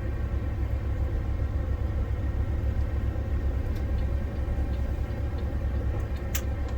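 Kenworth semi truck's diesel engine running with a steady low rumble as the rig drives in, with one sharp click near the end.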